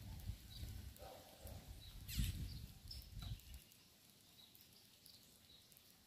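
A flock of small seed-eating birds feeding at a grain-covered wooden board: faint high chip calls now and then, with a brief rustle about two seconds in and a low rumble that fades out past the middle.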